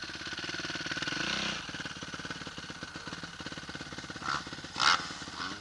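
Motocross bike engine idling, swelling briefly about a second in. There are two short, sharp noises near the end, and the second is the loudest.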